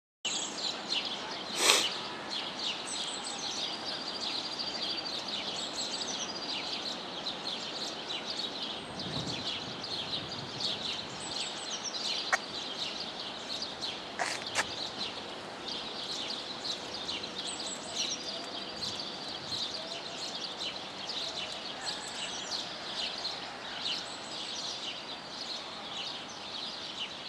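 Birds chirping and twittering continuously in a dense outdoor chorus, with a single brief sharp sound about two seconds in.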